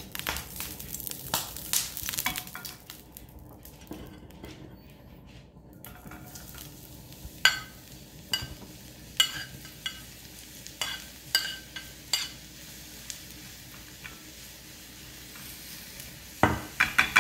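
Hot oil sizzling in a frying pan, then chopped mushrooms pushed in from a plate with a metal spoon: a run of sharp clinks of spoon on pan and plate. The mushrooms then fry with a quiet steady sizzle, and a clatter of stirring comes near the end.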